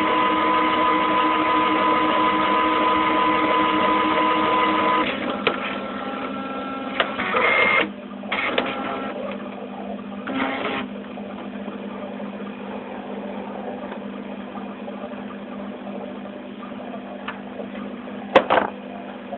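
Inkjet printer running as it prints etch-resist onto a copper-clad board carried on a flat tray. A steady motor whine for the first five seconds gives way to intermittent whirs and clicks of the feed mechanism. A lower steady hum follows, with a sharp click near the end.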